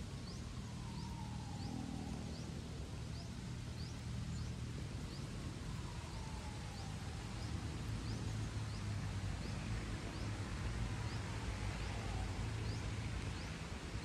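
Outdoor rural ambience: a steady low hum, with a short high chirp repeating about every two-thirds of a second and a slow falling whistle every few seconds.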